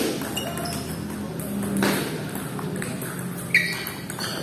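Table tennis ball being struck by rubber paddles and bouncing on the table in a rally: a few sharp pocks with a short ring, spaced about a second and a half to two seconds apart.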